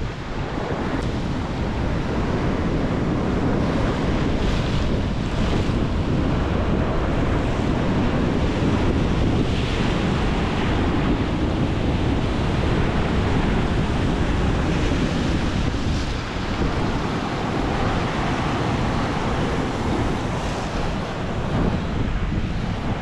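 Wind buffeting the microphone, with waves washing against the rocky shoreline; the noise is steady and rumbling, with a few brief swells as waves break.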